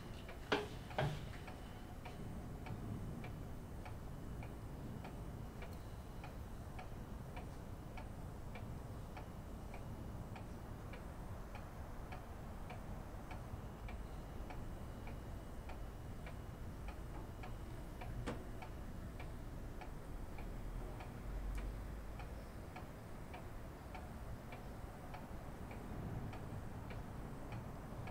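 Clock ticking steadily, about two ticks a second, in an otherwise quiet room, with a couple of sharp knocks about a second in.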